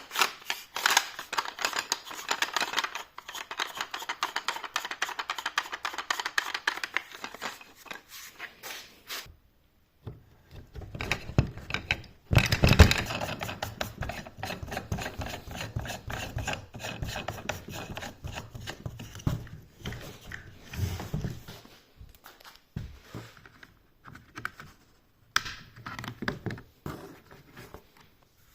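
Packaging and parts being handled: dense rubbing and rustling, then heavier scrapes and knocks, growing sparser towards the end, with a short pause about a third of the way in.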